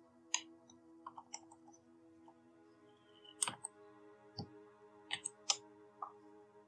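Computer keyboard keystrokes: a dozen or so sharp, separate clicks, with a quick run of them about a second in, over faint steady background music.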